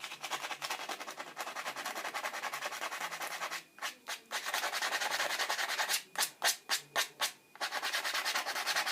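Sandpaper rubbed back and forth in rapid short strokes over the willow toe of a cricket bat, across wet superglue, so the sanding dust works into a compression crack and seals it. The rubbing stops briefly about a third of the way in, comes back as a few separate strokes, then runs steadily again near the end.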